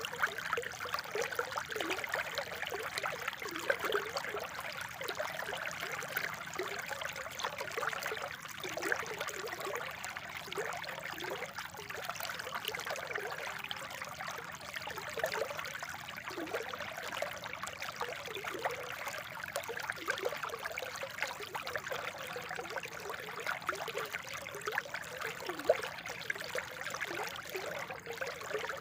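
Spring water trickling and babbling steadily, with a constant rush and many small bubbling gurgles throughout.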